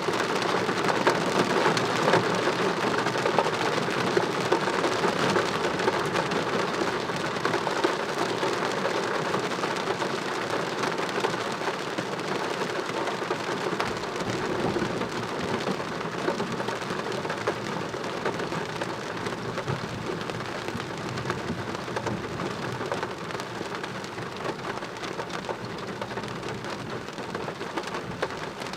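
Heavy thunderstorm rain pouring down in a steady, dense patter, growing slowly a little quieter over the stretch.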